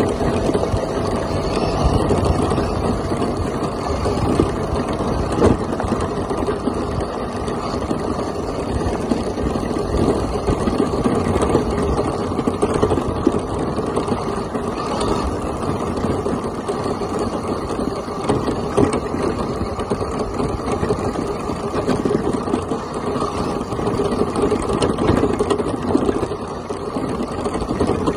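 Traxxas Stampede RC monster truck driving over gravel and dirt: a steady crackling rumble of tyres crunching and the chassis shaking, picked up by a camera mounted on the truck itself.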